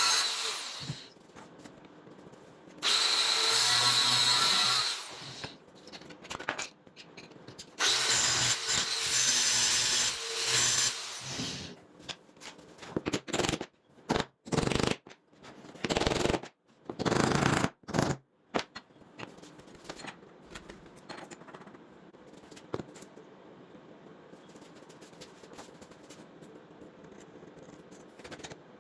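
Electric power tool with a steady motor whine, switched on in runs of a few seconds, then in a series of short on-off bursts; after that only faint low-level workshop sound remains.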